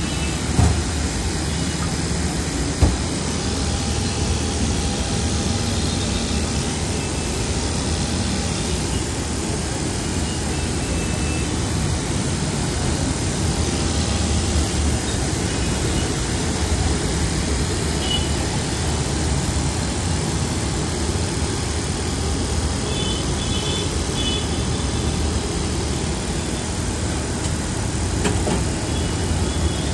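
Steady low rumble and hiss of a roadside food stall beside traffic, with a couple of sharp knocks in the first few seconds.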